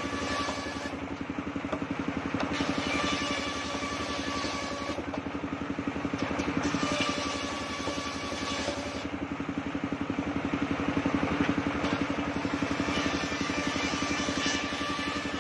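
Engine-driven table circular saw running steadily, its blade biting into waru wood planks several times as they are pushed through, each cut adding a higher-pitched rasp over the engine's steady throb.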